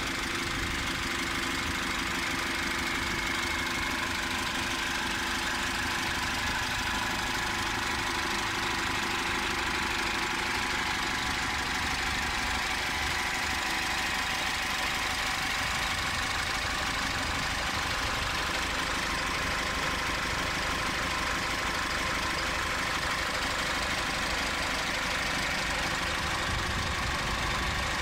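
Cummins ISF 2.8-litre turbocharged inline-four diesel idling steadily, heard up close in the open engine bay.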